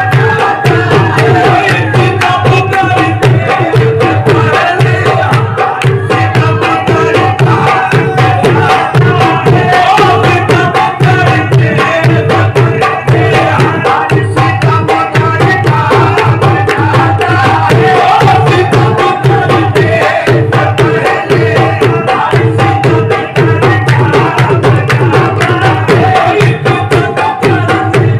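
Live qawwali music, loud and unbroken, driven by rapid tabla drumming under steady held melody notes.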